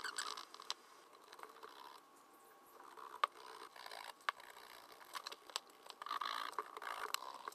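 Hand groover cutting a stitch channel into a leather midsole: faint scraping strokes in a few spells, with scattered small clicks.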